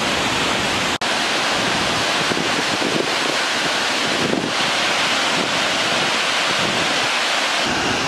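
Steady rush of water from Fukuroda Falls, a large tiered waterfall, with a brief dropout about a second in.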